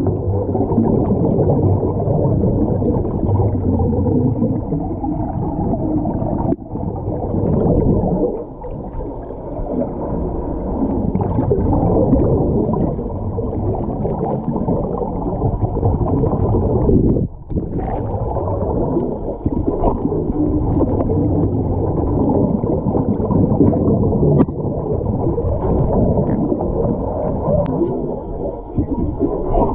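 Muffled underwater noise of water rushing and bubbling, with almost nothing above a middle pitch, and a few faint knocks.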